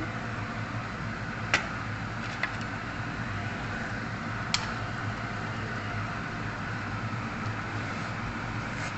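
A steady hiss with a low hum under it as a pot of chicken curry boils on the stove. Three light clinks, a spoon against the pot, come about one and a half seconds in, a second later, and again halfway through.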